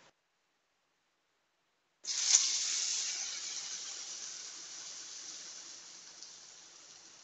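Hot coconut-oil tempering of mustard seeds, onion, dried red chillies and curry leaves poured into a coconut-based curry, sizzling in a sudden hiss about two seconds in that slowly fades away.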